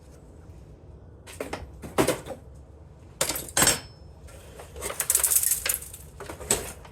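Small metal scrap parts from a dismantled electric organ clinking and clattering as they are handled: a few separate knocks, then a longer rattling run about five seconds in.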